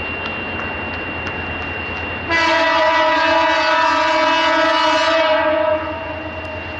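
Diesel locomotive's horn sounding one long blast of about three and a half seconds, beginning a little over two seconds in, over the steady rumble of the approaching train.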